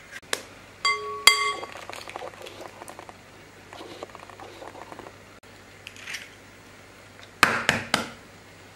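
An egg tapped twice on the rim of a glass mixing bowl, the bowl ringing briefly after each tap about a second in. Crackling of eggshell being pulled apart follows, then a cluster of sharp clicks near the end as the shell halves are worked to separate the yolk.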